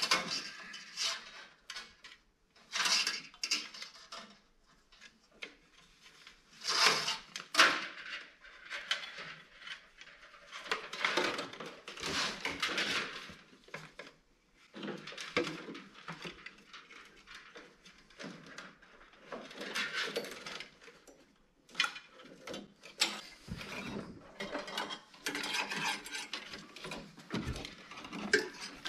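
Hands working a wire through a truck's engine bay: irregular rustling, scraping and small metallic clinks and knocks as the wire is pulled and fed into place.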